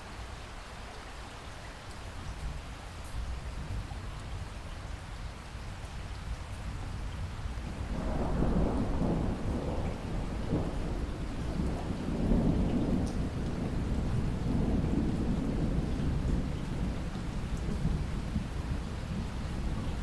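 Steady rain falling, with a roll of distant thunder rumbling in about a third of the way through and swelling and fading over the following seconds.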